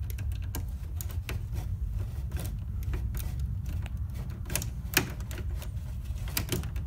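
Light, irregular clicks and scrapes of stiff copper wires being pushed into a circuit breaker's terminals and knocking against the neighbouring breakers and the metal panel, with one sharper click about five seconds in. A steady low rumble runs underneath.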